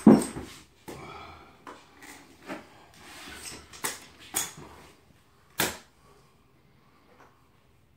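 Hand trowel scraping and spreading floor leveling compound over a subfloor, with a loud knock at the start and several sharp clicks of tool against tub or floor; the scraping stops about six seconds in.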